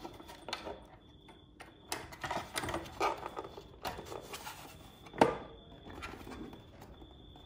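Hands handling the plastic housing of a garage door opener motor unit: irregular rubbing, light clicks and taps, with one sharper knock about five seconds in.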